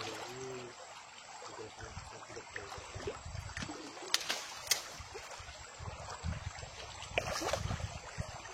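River water running, with a few sharp knocks about four seconds in and low rumbling handling noise near the end.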